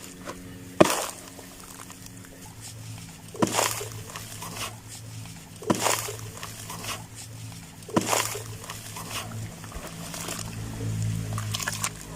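Dry grey sand-cement chunks crunching and crumbling apart: four loud crunches about two to two and a half seconds apart, each trailing off in a short patter of falling grit, then smaller crackles near the end.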